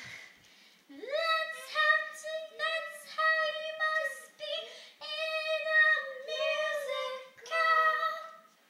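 A girl singing a tune in a high voice, unaccompanied, in a run of short held notes.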